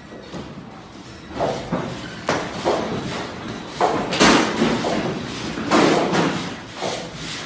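A run of irregular crashes and bangs over a continuous clatter, the loudest about four and six seconds in: things in a building knocking and falling as it shakes in an earthquake.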